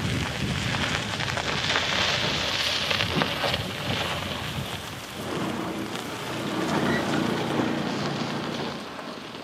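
Abandoned 1967 Ford F250 being dragged out of deep grass on a tow strap: a loud, continuous rushing and crackling of weeds and tyres against the body, with an engine running underneath that comes through more clearly in the second half.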